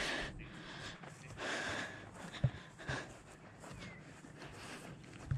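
Breathing and footsteps of someone walking over grass while carrying the camera: a few soft puffs of breath noise and a single light knock about two and a half seconds in.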